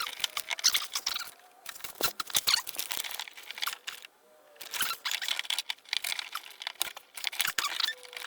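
Duct tape being pulled off the roll and pressed down, crackling and tearing in irregular bursts, with a short pause about four seconds in.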